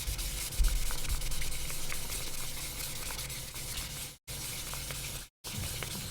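Wet sandpaper scrubbing back and forth on the plastic AirPods Pro case: a steady scratchy hiss with faint small clicks, broken twice by brief dead-silent dropouts.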